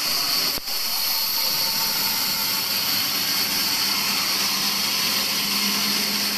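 Large band saw running and resawing a wooden slab: a steady, loud rushing noise, strongest in the high range, that dips briefly about half a second in.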